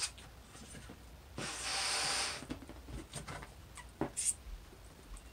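A long breath blown into a latex balloon, starting about a second and a half in and lasting about a second, then short rubbery squeaks and rustles as the inflated balloon is handled.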